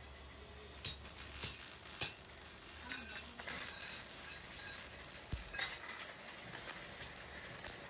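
A few sharp metal clinks, then an electric arc welder crackling on steel tubing in bursts from about three and a half seconds in.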